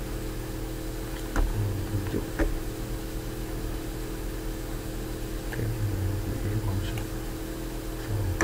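Steady hum of a computer and room noise, with a few sharp mouse clicks while clips are dragged along an editing timeline.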